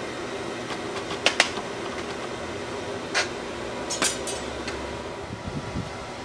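Steady rush of the air blower feeding a charcoal melting furnace. Over it, sharp metal clinks of long steel tools knocking against a steel bucket: two quick ones just over a second in, one about three seconds in and a short cluster around four seconds.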